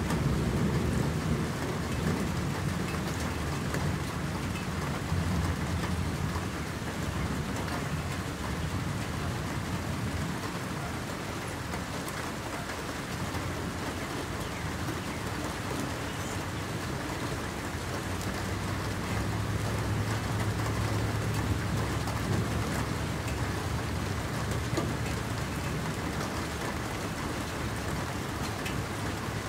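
Steady rain pattering on a lake's surface, with low rumbles of distant thunder in the first several seconds and again a little past the middle.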